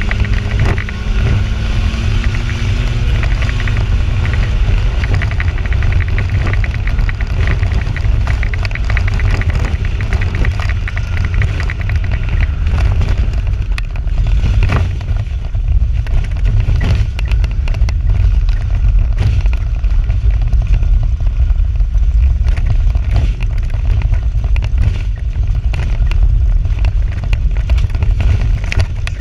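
Two-wheel-drive Toyota 4Runner racing on a dirt oval, heard from inside the cab: loud engine and drivetrain rumble with constant rattling and clatter. The engine note climbs a little in the first few seconds.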